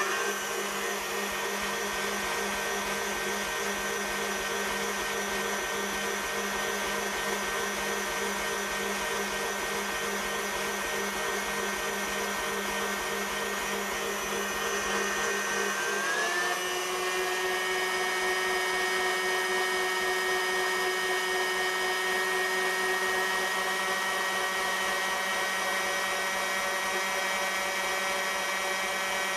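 KitchenAid Heavy Duty K5SS stand mixer running with an empty bowl, a steady motor and gear whine. About halfway through the pitch glides up and settles higher as the speed is raised.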